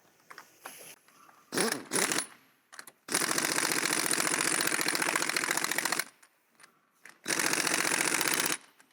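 Impact wrench hammering a CV joint hub nut on: two long runs of rapid impacts, about three seconds and just over a second, after a couple of short blips on the trigger.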